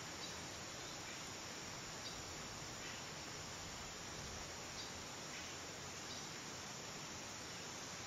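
Steady rainforest insect chorus, an even hiss, with faint short high chirps every second or so.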